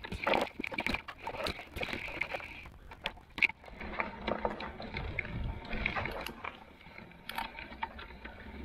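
Electric fat bike ridden over a rough track: a rumble from the tyres with irregular clicks and knocks as the bike jolts over bumps. A hissing band sits high up for about the first three seconds, then drops away.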